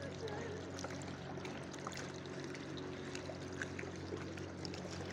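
Sea water lapping and trickling around a camera held at the surface, with many small sharp droplet ticks. A steady low hum runs underneath.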